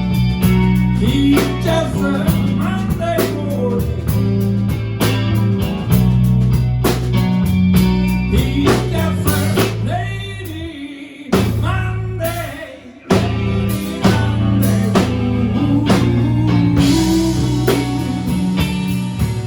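Live blues band playing an instrumental passage: guitar lead lines over bass and a steady drum beat. About ten seconds in the band drops out briefly, then comes back in together.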